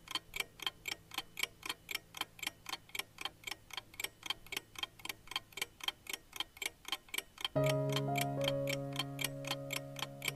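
Clock-ticking countdown sound effect: quick, even ticks, about four a second, marking the last seconds of a timer running out. About seven and a half seconds in, a held chord of sustained tones comes in under the ticking.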